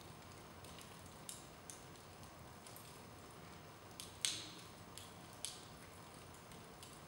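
Wood fire in a fireplace crackling over a faint hiss, with scattered irregular snaps and one sharper, louder pop a little past halfway.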